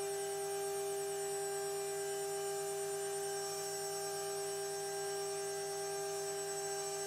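Spindle of a Jcut-3030 desktop CNC router running with a steady whine.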